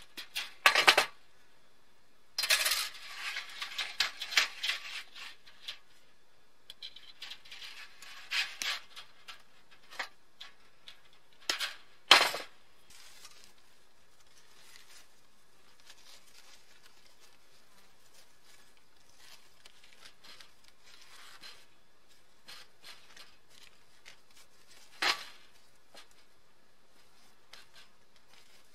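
Galvanized fence wire being handled and pulled off a small spool to loop through the hemmed edge of camo netting. Scattered metallic clinks, rattles and rustling come in short clusters, with a few sharp clicks, the loudest about twelve seconds in.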